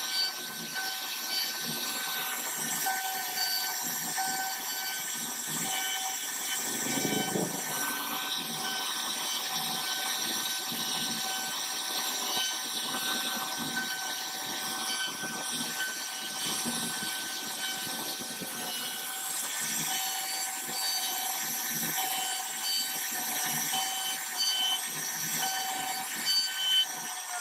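CNC router spindle running with a steady high whine over a hiss as the bit cuts into khat wood. The whine pulses in an even rhythm.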